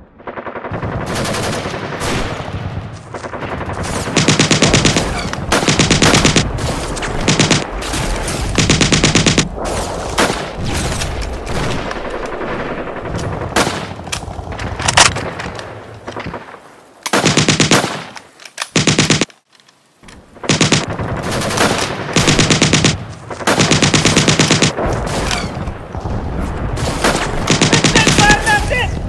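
Gunfire: repeated bursts of rapid automatic fire, each about a second long, among single rifle shots, with a brief lull a little past the middle.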